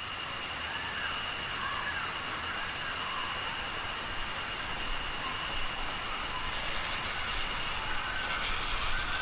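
Steady rain hissing on foliage, with a continuous high-pitched insect trill from crickets and a repeated rising-and-falling call about once a second.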